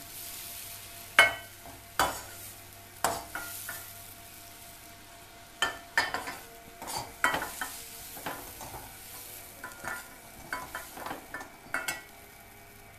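A spoon scraping and knocking against an aluminium kadhai as cooked green chilli pickle is scooped out, giving a dozen or so sharp, irregular knocks over a faint steady hum. The loudest knock comes about a second in.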